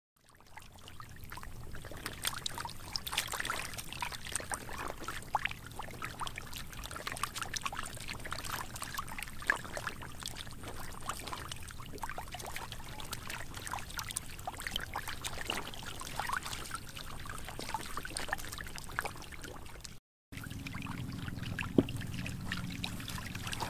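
Many large fish thrashing in shallow muddy water, a dense steady patter of small splashes and slaps. About twenty seconds in the sound drops out briefly and gives way to a duller, lower background noise with one sharp knock.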